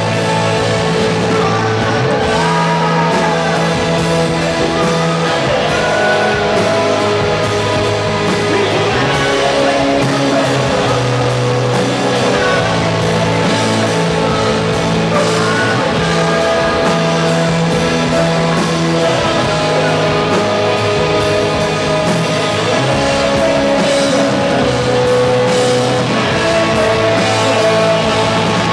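Rock band playing live: electric guitars and drum kit, with a man singing into a microphone.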